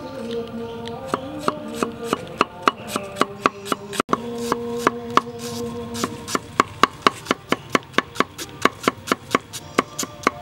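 Cleaver mincing an onion on a wooden chopping board: a run of sharp, even knocks that quickens to about four a second in the second half.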